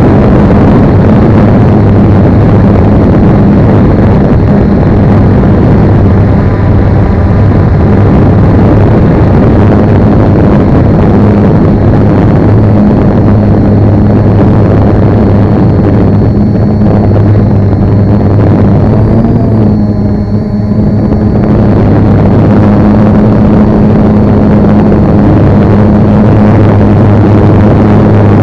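A camera drone's propellers and motors running as it climbs, a loud steady buzzing hum heard from the drone's own onboard microphone, easing slightly for a moment about twenty seconds in.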